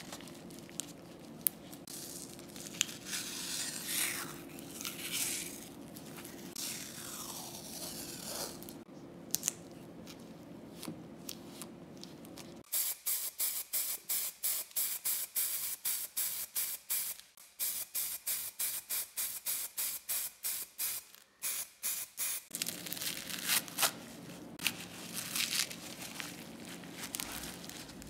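Paper towel rustling and crinkling in gloved hands over a steady low hum. About halfway through comes some ten seconds of short spray bursts from an aerosol can, about three or four a second, aimed at the wooden cleaver handle. Then masking tape is torn and peeled off the blade.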